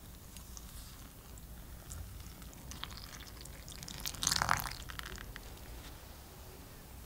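Milk pouring in a stream into a glass bowl of flour and yeast, a soft running trickle that gets louder for about half a second around four seconds in.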